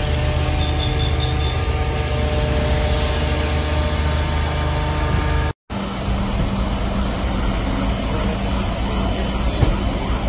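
Emergency vehicles' engines idling steadily, with a continuous hum. A little past halfway the sound cuts out for an instant, then a steady rushing noise with a low hum carries on.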